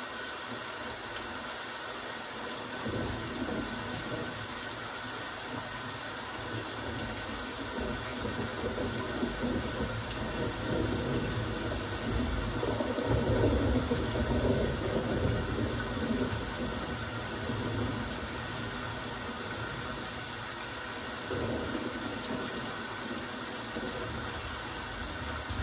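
Steady rain falling, an even hiss of raindrops. A low rumble swells a few seconds in, is loudest near the middle and fades again.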